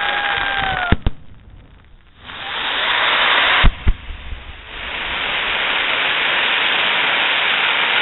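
Fireworks: a loud hiss that swells and is cut off by sharp bangs, a double crack just before a second in and another about 3.7 s in, then the hiss builds again. A faint whistle sounds in the first second.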